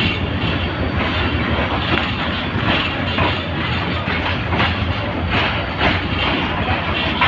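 Passenger train rolling slowly, heard from the open door of a coach: a steady rumble of wheels on track, with sharp clacks about every second as the wheels cross rail joints.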